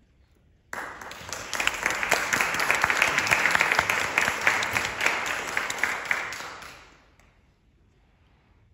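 Audience applauding, starting suddenly about a second in and dying away about seven seconds in, leaving a quiet hall.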